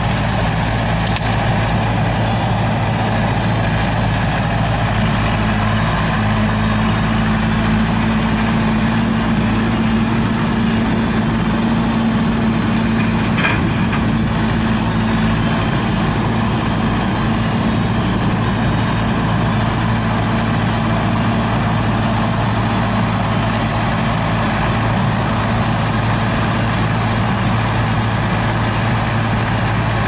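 Diesel engine of a HAMAC TS80 tracked skid steer loader running steadily as the machine works, a constant low engine drone with a slightly higher hum standing out for several seconds early on.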